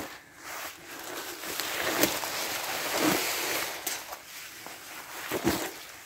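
Footsteps through fallen leaves and forest litter, with rustling, and a few louder crunches about two, three and five and a half seconds in.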